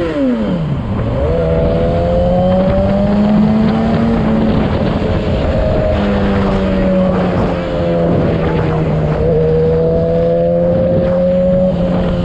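Sport motorcycle engine at a steady cruise. The revs drop right at the start, then hold steady, with a constant rush of wind and road noise.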